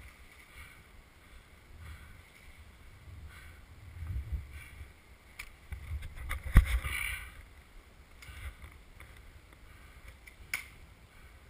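Quiet outdoor background with low rumbling wind on the microphone, faint rustling about once a second, and a sharp click a little past the middle and another near the end.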